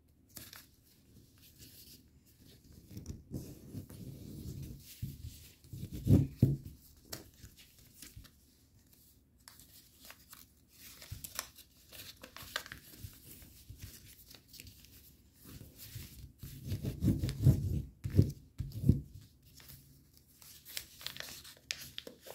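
Paper rustling and crinkling as it is creased and folded by hand, with brief crisp ticks of the folds. Heavier low thumps come about six seconds in and again in a cluster around seventeen to nineteen seconds.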